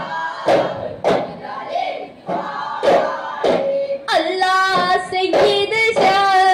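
Daf frame drums struck in single sharp beats by a group of boys, with a chorus of boys' voices singing; the singing becomes fuller and steadier about four seconds in.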